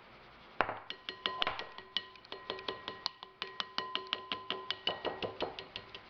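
Plastic mesh strainer knocked against a glass mixing bowl while sifting ground bitter melon powder: quick clinks, several a second, with the glass bowl ringing. It starts about half a second in and stops shortly before the end.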